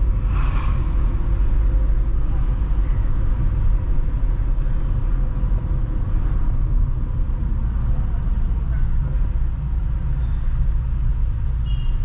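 Car driving along a town road, a steady rumble of engine and tyres heard from inside the cabin.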